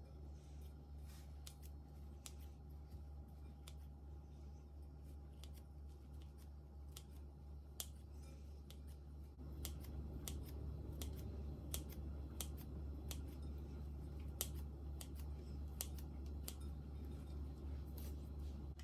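Shredded kataifi dough being cut into short pieces: a run of irregular crisp snips over a steady low hum that gets louder about halfway through.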